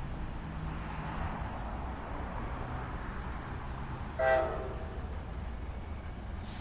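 An NJ Transit train's steady rumble, with one short horn blast of several tones about four seconds in.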